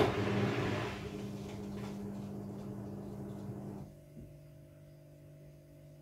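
Front-loading washing machine's drain pump starting suddenly with a rush of water and a steady hum, running for about four seconds and then cutting off, as the machine drains its rinse water automatically.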